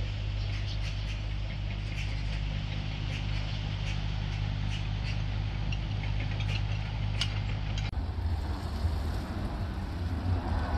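A steady low engine hum with faint ticks above it. About eight seconds in it cuts off abruptly and wind rushes on the microphone.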